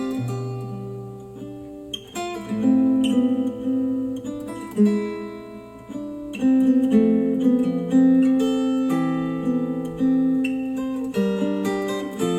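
Acoustic guitar music with plucked and strummed chords and no vocals, played back through KEF R3 bookshelf speakers driven by an IOTAVX SA3 integrated amplifier.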